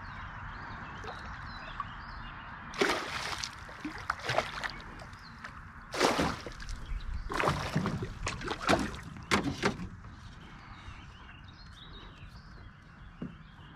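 A big chain pickerel thrashing at the water's surface beside a boat: a run of about six sharp splashes over some seven seconds, then quieter water.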